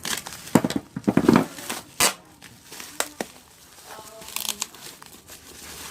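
Packaging crinkling and rustling as it is handled during unboxing: irregular crackles and small knocks, busiest in the first second and a half, with a sharp knock about two seconds in.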